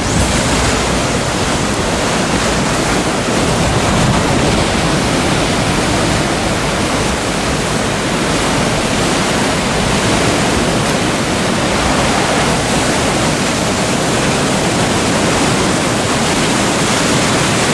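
Sea surf breaking and washing over a rocky shore: a steady, unbroken rush of water.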